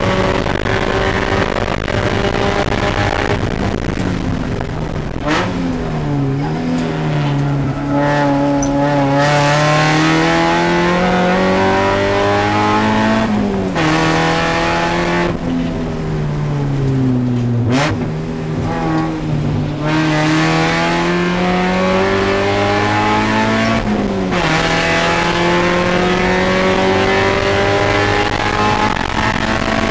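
Spec Miata race car's four-cylinder engine heard from inside the cockpit under racing load. It climbs in pitch as it pulls through each gear, and its revs fall sharply at gear changes and braking about four times, over steady road and wind noise.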